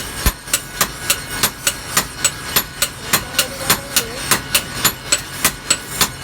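A hammer striking metal in a fast, even rhythm of about three to four blows a second, each blow with a short metallic ring: forging on an anvil.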